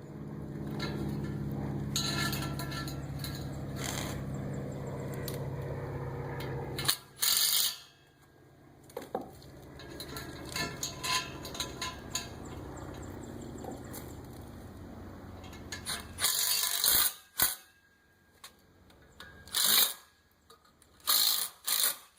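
A power drill running steadily for about seven seconds while drilling a mounting hole with a 3/8 bit, then running more quietly for several seconds. Near the end come several sharp metallic clinks and knocks.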